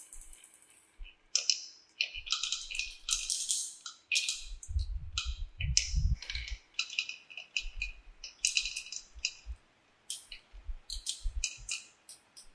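Marbles clicking and rattling as they roll down a marble-run track, in quick irregular bursts of clatter with a few dull low thumps in places.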